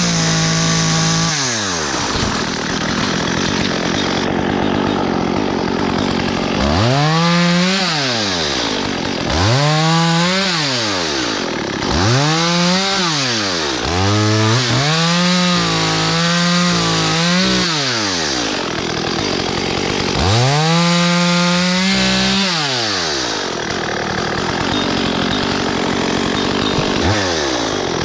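STIHL MS 194 T top-handle two-stroke chainsaw revving up to full throttle and dropping back to idle, again and again. Each burst lasts one to three seconds, the longest about three and a half seconds, with short stretches of idle between.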